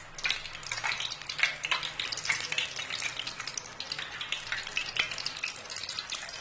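Potato and gram-flour paste deep-frying in hot cooking oil as it is piped in from a cut plastic bag: a steady, dense sizzling crackle of many small pops.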